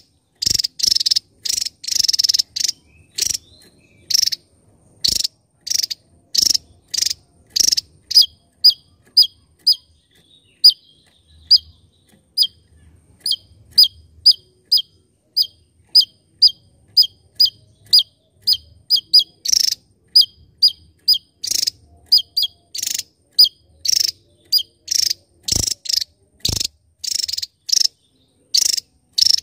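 Javan tesia singing a steady run of short, sharp notes, about two a second, with the middle stretch turning into quick downward-slurred whistles.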